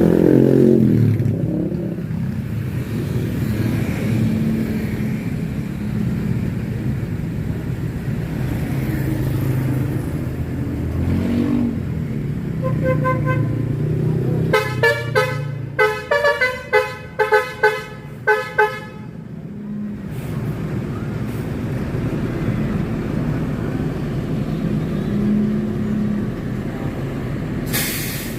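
Tour bus 'telolet' musical horn playing a quick tune of short, sharp toots for several seconds, over the steady rumble of the bus's diesel engine as it climbs the hill.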